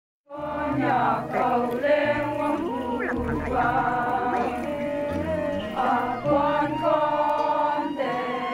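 A group of voices singing a folk chant together in long, held notes, starting just after a brief silence.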